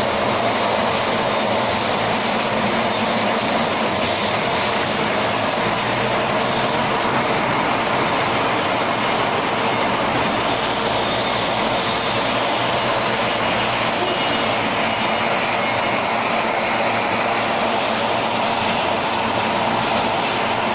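Spindle log lathe running, peeling a log into a continuous sheet of veneer that feeds out onto a roller conveyor: a loud, steady, dense machine noise that holds at one level throughout.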